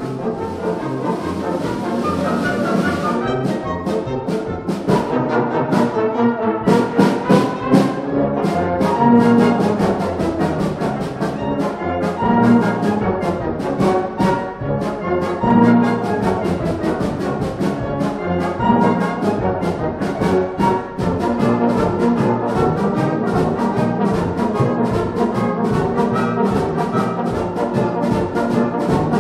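Concert wind band playing a medley of classical tunes arranged for band: brass and woodwinds carry sustained chords and melody. A cymbal wash sounds in the first few seconds, then percussion keeps a busy, steady beat.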